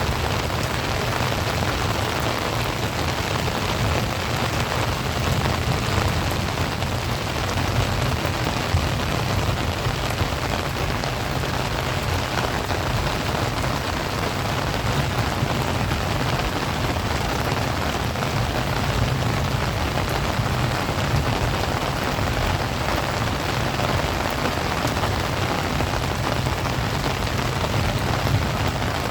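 Heavy rain falling steadily, a dense, even hiss of drops striking hard surfaces.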